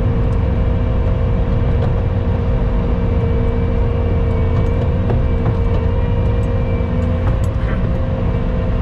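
Skid steer engine running steadily, a low drone with a steady whine over it.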